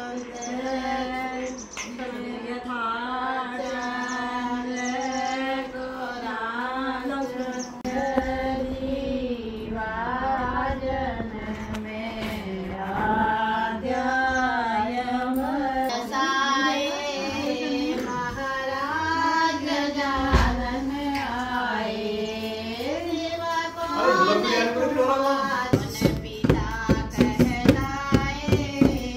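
Women singing a slow Kumaoni mangal geet, an auspicious ceremonial song, in long held, wavering notes. A drum beat joins in about three-quarters of the way through.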